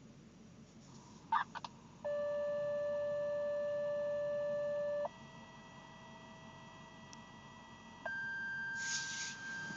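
Fire dispatch alert tones from a scanner radio: a couple of clicks about a second in, then three steady electronic tones of about three seconds each, each at a different pitch, the paging signal that precedes a dispatch call.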